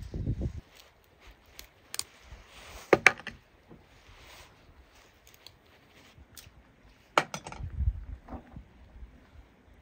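Scattered sharp knocks and clicks of hand work, with a loud cluster about three seconds in and another group about seven seconds in, and quiet between.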